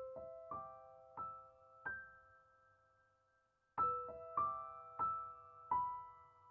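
Background piano music: a slow, gentle melody of single struck notes that ring and fade, with a brief pause about halfway through before the phrase resumes.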